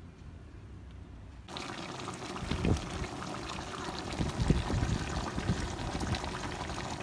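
A pot of soup cooking on the stove: from about a second and a half in, a steady wet bubbling and crackling, with a few louder low plops.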